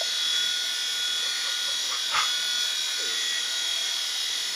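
Small indoor RC toy helicopter's electric motors and rotor running at full throttle: a steady high electric whine. There is a faint tap about two seconds in.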